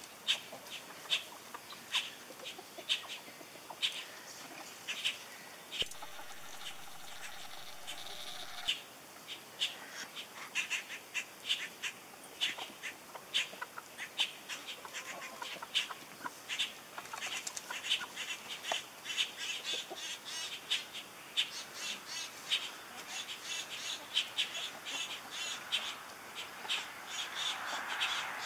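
Chickens foraging in loose garden soil: an irregular run of short scratching and pecking sounds, a few a second, with bird calls mixed in.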